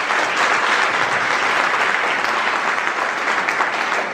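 Audience applauding steadily with dense clapping.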